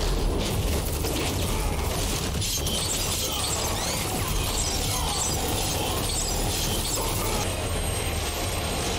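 Action-scene sound effects from a TV show's soundtrack: explosion and fight noise blended into a dense, steady wash over a low rumble.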